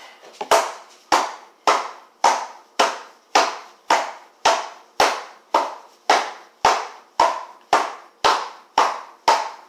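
Cornstarch being packed down in its opened cardboard box against a wooden tabletop: a steady run of sharp thumps, about two a second, each dying away quickly.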